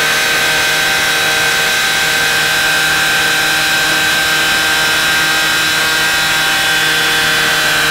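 Portable fire pump engine running steadily at high revs under load, pumping water through the hoses to two nozzle jets.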